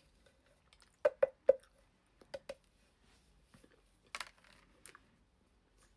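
Several sharp clicks or knocks from small hard objects being handled: three quick ones about a second in, two more shortly after, then a brief rustling burst.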